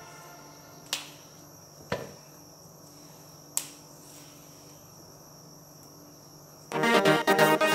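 Three crisp snaps, spaced irregularly over the first four seconds, as fresh flat green beans are broken by hand, over a faint steady high hiss. Background music comes in loudly near the end.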